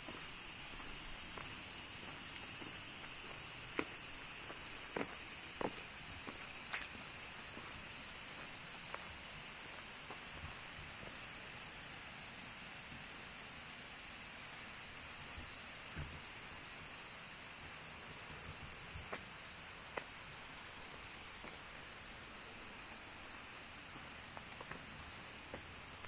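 Cicadas droning in a steady, high-pitched summer chorus that slowly fades, with a few faint clicks of footsteps along the path.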